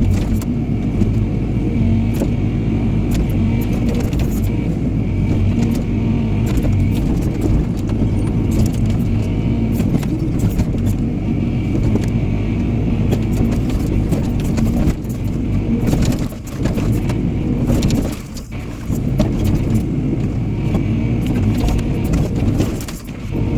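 Excavator's diesel engine running steadily, with scattered knocks and clatter of logs being gripped and moved by its grapple.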